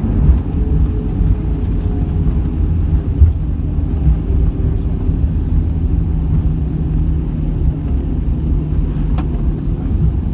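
Airbus A319 cabin noise as the airliner rolls down the runway just after landing: a steady low rumble of engines and wheels, with a faint steady hum joining about halfway through and a single click near the end.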